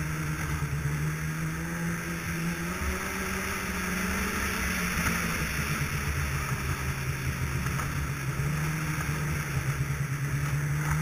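Snowmobile engine running under way on a snow trail, its pitch easing down in the middle and climbing again near the end, over a steady rushing noise.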